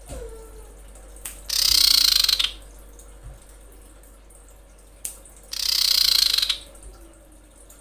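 Female common iora giving two harsh, rasping calls, each about a second long and about four seconds apart: the female's call to a male.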